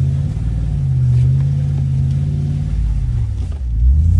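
A 2024 Ram Power Wagon's 6.4-litre HEMI V8 pulls at low revs up a rutted dirt climb, heard from inside the cab. The low engine note rises and falls a little with the throttle.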